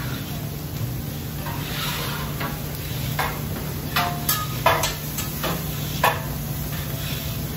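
Metal spatulas clinking and scraping on a steel hibachi griddle while meat and vegetables sizzle, over a steady kitchen hum. The sharp metal clinks come in a cluster between about three and six seconds in.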